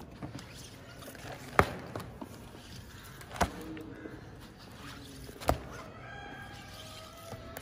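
Paperback workbooks and a cardboard box being handled, with three sharp knocks about two seconds apart as books are set down or tapped against the stack.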